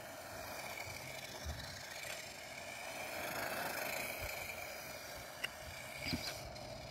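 Faint, steady whir of an HBX Hailstorm 1/18 four-wheel-drive RC truggy's brushed 380 electric motor and drivetrain as it drives on asphalt, swelling a little around the middle. A short click sounds about five seconds in.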